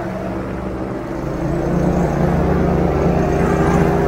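Airboat engine and propeller running, picking up speed about a second and a half in, growing louder and higher.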